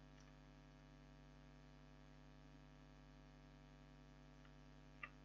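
Near silence: a faint, steady electrical hum, with one faint click near the end.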